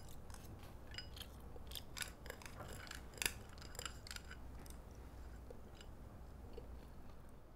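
Wooden chopsticks clicking against a porcelain rice bowl as rice is shovelled into the mouth: a run of light, irregular clicks that thin out after about four or five seconds.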